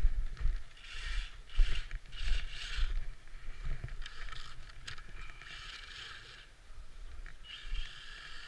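RC trophy truck driving through snow in short bursts of throttle: its motor whine and tyres churning snow come and go several times. Irregular low thumps and rumble on the microphone run underneath.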